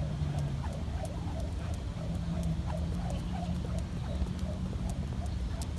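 Plastic jump rope spinning and ticking against the pavement in scattered sharp clicks, over a steady low rumble outdoors.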